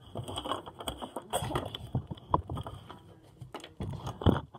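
Handling noise of a phone held against clothing: pajama fabric rustling and rubbing over the microphone, with scattered small knocks and a louder bump near the end.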